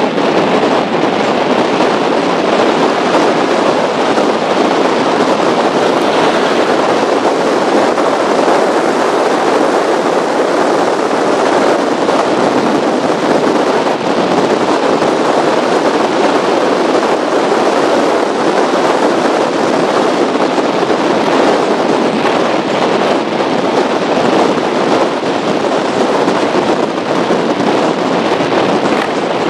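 Powerboat running at high speed over choppy water, heard as a loud, steady rush of wind buffeting a microphone on the bow, mixed with engine noise and water spray.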